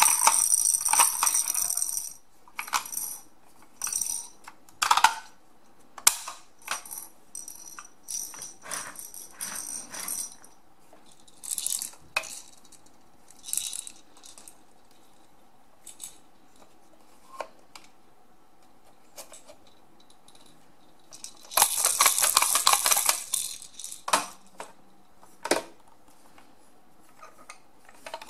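Fisher-Price Stacking Action Blocks being turned and played with by hand: their plastic beads, roller and spinner rattle and click. A burst of rattling at the start and another about three quarters of the way through, with scattered clicks and clacks between.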